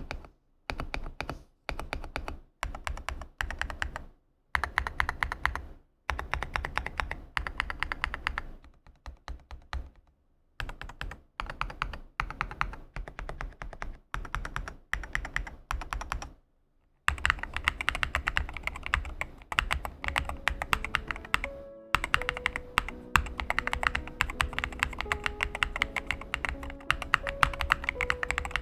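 Fast typing on a GMK67 custom mechanical keyboard with Akko Cream Yellow V3 Pro linear switches and PBT keycaps: rapid rows of keystrokes in short bursts with sudden silences between them. About two-thirds of the way in the typing becomes continuous, and soft background music comes in under it.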